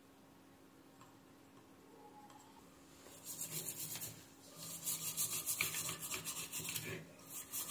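A bristle brush scrubbing a printed circuit board with rapid back-and-forth strokes. It starts about three seconds in and comes in three spells with short pauses between them.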